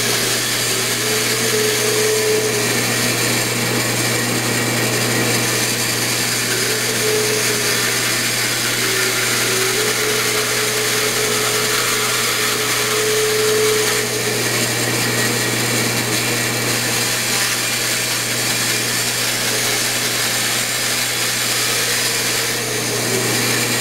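Bandsaw running and cutting a small wooden handle blank, sawing away the rough waste. A steady motor hum and blade whir, with a higher tone that comes and goes several times as the work is fed through.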